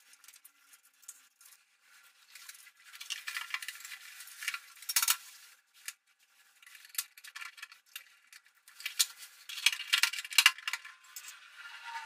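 Hand work on the fittings of a wall-mounted electric instant water heater: scraping and clicking in two spells, one about three seconds in and one about nine seconds in.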